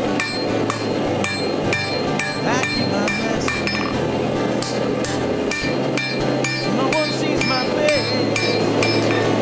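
Hand hammer striking hot steel on an anvil while forging a wakizashi blade, about two to three blows a second, each ringing. A steady low hum runs underneath and drops out briefly about halfway through.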